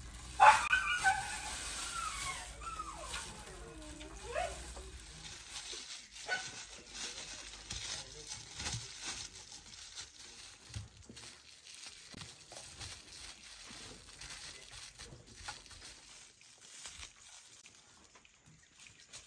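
Plastic wrap crinkling and rustling as it is stretched over the mouth of a clay pot and tied down with string, with faint taps of handling. About half a second in, a drawn-out animal call slides down in pitch over about four seconds, turning up again at its end; it is the loudest sound.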